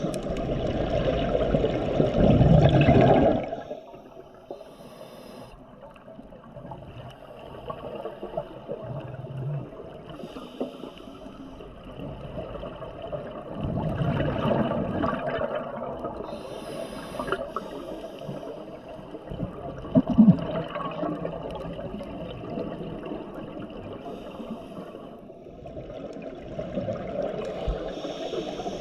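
Scuba diver breathing through a regulator underwater: bursts of exhaled bubbles rushing out, the loudest at the start, again about halfway through and near the end, with quieter hissing stretches between breaths.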